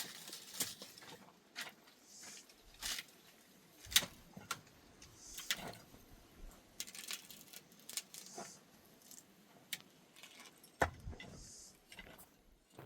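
Irregular sharp clicks and knocks with a light jingling clatter, from hand work on wooden fence poles and tools, with a few soft rasping scrapes between them.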